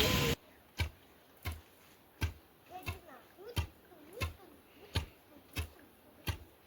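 A loud hiss cuts off just after the start. Then come steady, evenly spaced chopping strokes of a blade on a hard surface, each a sharp knock with a dull thud, about three every two seconds.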